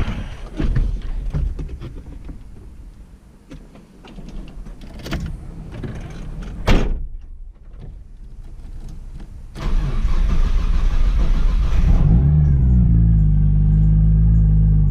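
Scattered knocks and clicks of a car cabin being handled, then a Nissan Skyline R33's RB25DET turbocharged straight-six is cranked by the starter about ten seconds in and catches after a couple of seconds, settling into a loud steady idle.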